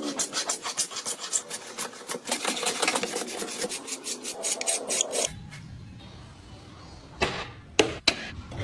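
A hand rasp or file worked over wood in quick back-and-forth strokes, about four or five a second, for about five seconds. After a quieter pause come a few separate strokes near the end.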